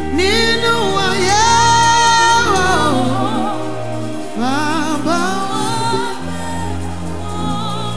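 Woman singing a gospel worship song into a microphone in two long phrases with a wavering vibrato, over held accompaniment chords and bass.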